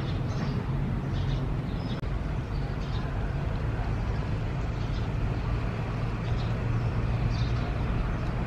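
A steady low motor drone, like an engine running, with faint short high chirps over it and a brief dropout about two seconds in.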